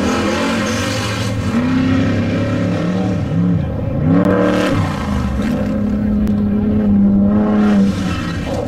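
Off-road desert race vehicle engines revving, the pitch rising and falling several times, then holding a steady note for about two seconds near the end.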